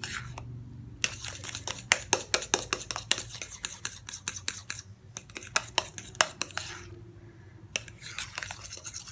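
Metal spoon beating a thick, creamy paste in a bowl: rapid clicks and scrapes of the spoon against the bowl's sides, breaking off briefly a few times, over a faint low hum.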